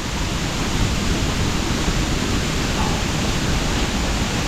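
Steady, loud roar of a waterfall's rushing water.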